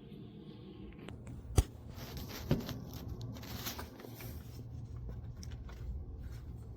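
Two sharp knocks about a second apart, followed by light scraping, rustling and small clicks, like objects being handled on a hard surface.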